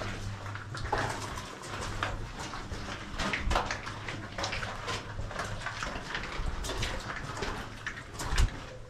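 Irregular footsteps crunching over the rock and rubble floor of a mine tunnel, with a low steady hum underneath and one louder thump near the end.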